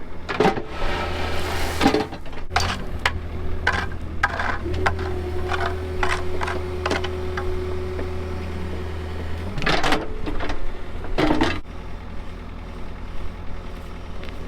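Heavy equipment engine running with a steady low hum while it works a limestone block into place, with scattered clanks and knocks of stone and metal. A steady whine holds for about five seconds in the middle, and louder bursts of noise come near the start and again about ten and eleven seconds in.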